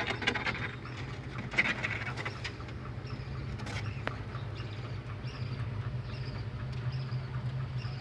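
Baby rabbits munching fresh vegetables: a quick run of crisp crunching clicks in the first couple of seconds, over a steady low hum. From about three seconds in, short high falling chirps repeat about one and a half times a second.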